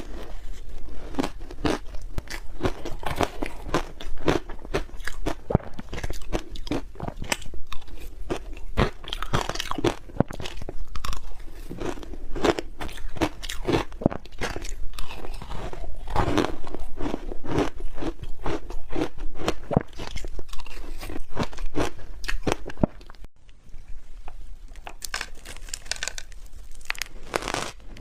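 Close-up crunching and chewing of hard ice, a dense run of crisp bites and grinding crunches. Near the end the crunching turns quieter and more crackly.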